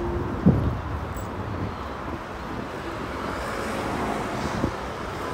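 City street ambience: a steady wash of car traffic noise, with a sharp knock about half a second in and a softer one near the end.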